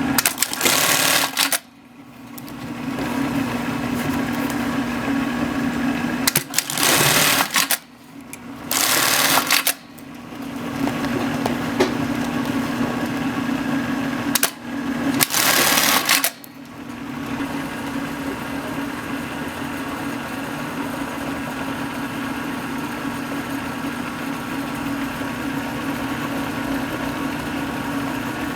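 Industrial bartack sewing machine running: a steady motor hum broken four times by loud bursts of stitching about a second long, each a short tacking cycle.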